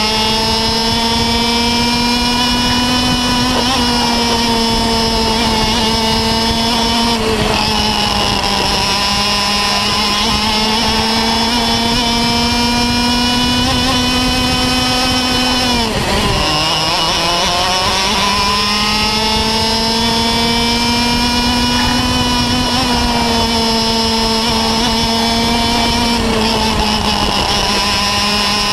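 Two-stroke Parilla kart engine heard from the kart itself, running near full revs. The pitch dips briefly a few times and falls sharply once about halfway through, then climbs back up as the kart accelerates again.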